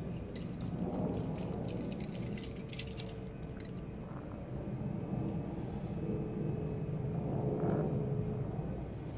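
Steady low outdoor rumble, with a flurry of small clicks and crackles in the first three seconds or so.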